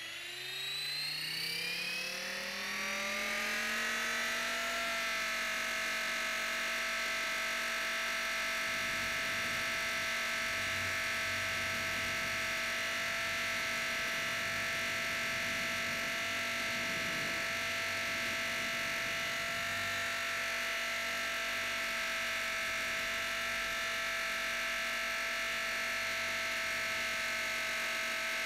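Blade 450 X electric RC helicopter's brushless motor and rotor head spooling up, its whine rising in pitch over the first four seconds or so, then holding a steady whine at constant head speed, heard from a camera mounted on the helicopter.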